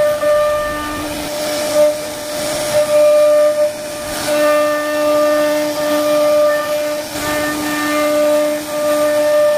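CNC router spindle whining at a steady high pitch while its bit cuts into wood, with a hiss of cutting that swells and fades in short surges.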